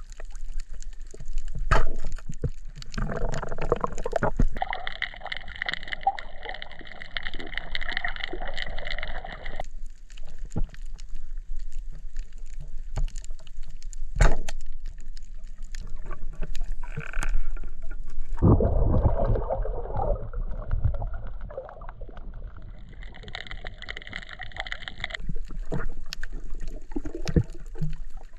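Water heard through a camera held below the surface: muffled sloshing and gurgling with scattered sharp clicks and knocks. Two longer stretches of hissing, bubbling noise come a few seconds in and again near the end.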